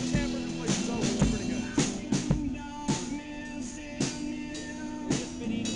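Background music with a steady drum beat, about two hits a second, under sustained held notes.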